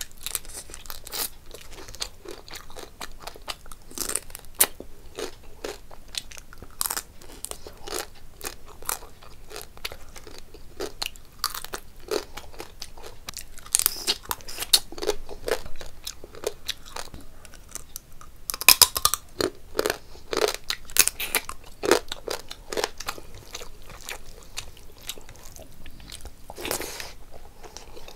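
A person chewing and smacking their lips while eating rice and curry by hand, with many quick, irregular wet mouth clicks and a burst of louder ones about two-thirds of the way through.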